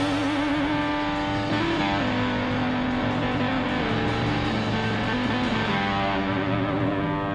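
Rock music led by electric guitar, with held notes that waver in pitch.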